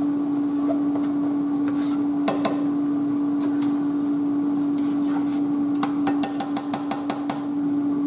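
Metal spoon knocking and scraping against a cooking pot: a couple of single knocks, then a quick run of clicking taps for about a second and a half near the end, over a steady hum.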